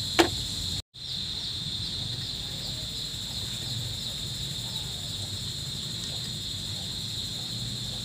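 Crickets chirping steadily in a continuous chorus, with a brief sharp knock just after the start and a short dropout of all sound about a second in.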